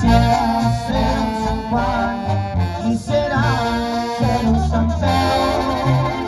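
A Mexican banda (brass band) playing: a wavering melody with vibrato over a deep, pulsing tuba bass line.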